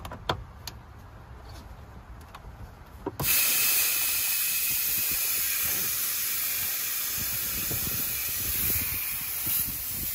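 A few light clicks as the AC gauge hose's quick coupler is fitted, then about three seconds in a sudden loud, steady hiss of R134a refrigerant escaping from a loose hose fitting on the manifold gauge set. The hose's attachment point on the manifold was not tightened all the way.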